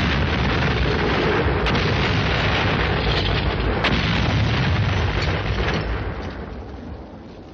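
Explosion on an old war film's sound track: a sudden blast right at the start, then several seconds of rumbling noise with a few sharper cracks, fading away over the last two seconds.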